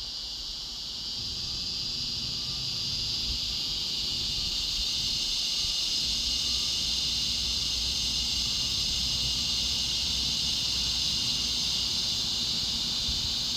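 Cicadas in a steady, high-pitched chorus that swells slightly over the first few seconds.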